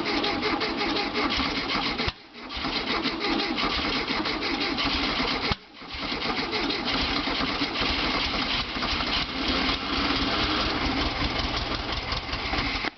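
VW Beetle's air-cooled flat-four engine being cranked over by the starter without catching, in three long bursts with short breaks about two and five and a half seconds in. The engine does not fire: the owner puts it down to no fuel getting through.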